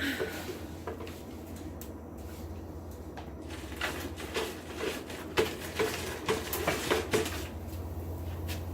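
Hammer blows on hot steel at the anvil: about ten strikes in quick succession, starting about four seconds in and stopping about three seconds later, each with a short ring. A steady low hum runs underneath.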